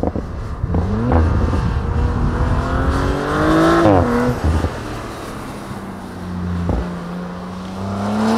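2023 Audi RS5 Competition Plus's twin-turbo V6 exhaust under acceleration: the engine note climbs for about three seconds, then drops sharply about four seconds in, as at an upshift. It runs steadier for a few seconds and climbs again near the end, with a few sharp exhaust cracks along the way.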